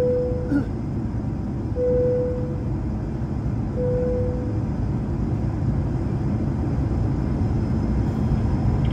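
Cabin noise of an Airbus A220-300 taxiing onto the runway: a steady low rumble of engines and wheels. A short steady tone sounds three times, about two seconds apart, in the first few seconds.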